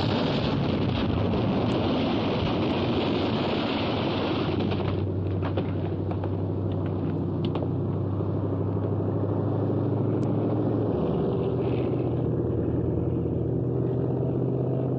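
Vehicle engine running with a steady low rumble. A hiss lies over it for the first five seconds and cuts off suddenly.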